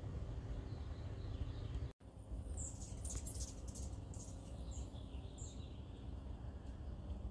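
Outdoor ambience with small birds chirping: a cluster of short, high chirps and calls from about two to six seconds in, over a steady low rumble.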